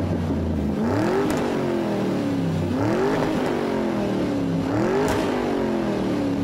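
A car engine revving repeatedly, about four times, each rev climbing quickly in pitch and then falling back more slowly.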